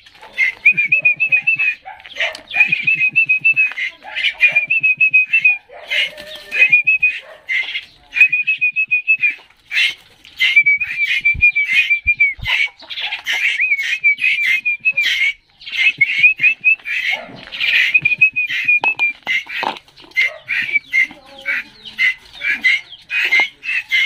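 Juvenile Asian koels begging: a fast string of high, wavering calls, one after another, the sign of hungry chicks asking to be fed.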